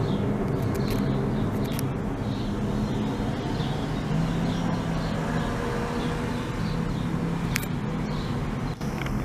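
Steady rumble of a jet airliner's engines climbing out after takeoff, with small high chirps repeating about twice a second.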